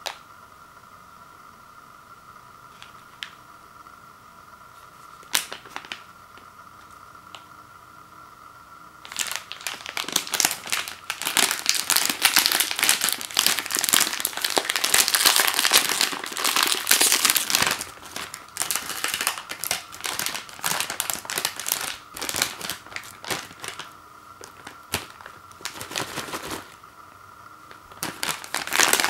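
Foil-lined snack bag being handled and torn open by hand, its metallized plastic crinkling. A few light handling clicks come first; about nine seconds in it breaks into a long stretch of loud, dense crinkling and tearing, which then eases into intermittent crinkles that pick up again near the end.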